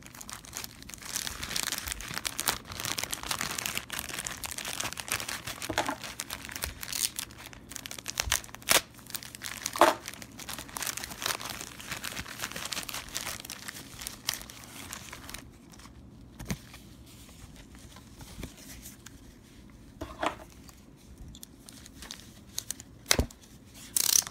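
Clear plastic packaging bag crinkling and crackling as it is handled and pulled open by hand, densest in the first half. After that it thins to scattered small clicks and taps.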